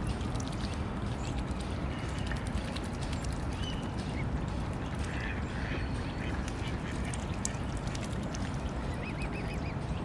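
Mallard ducks quacking, with a quick run of short quacks near the end, over steady low background noise and small clicks from the feeding birds.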